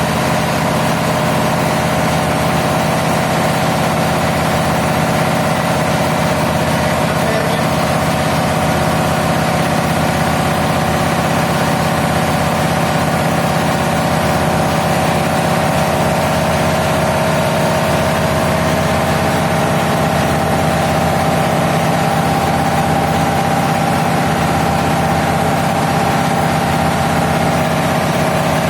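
A diesel engine running steadily at constant speed with an even, unchanging hum.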